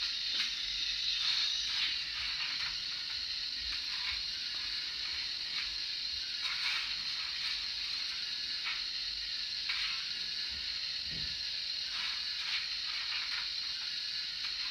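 Model steam locomotive's sound decoder playing its coal-firing effect through the small onboard speaker of a Fleischmann N-gauge BR 044: irregular shovel scrapes and coal rattles, one every second or two, over a steady hiss of steam.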